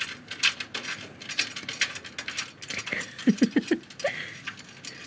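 Packaging rustling, with a dense run of small clicks and crinkles. About three seconds in comes a quick run of four short low calls, followed by one higher brief call.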